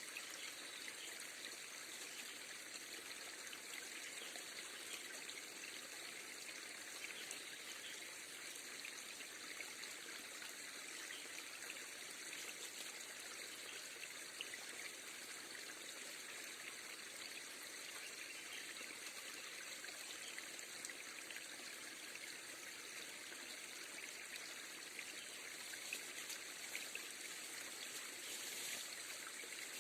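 River water flowing steadily, with a light trickling and many small ticks of splashing water.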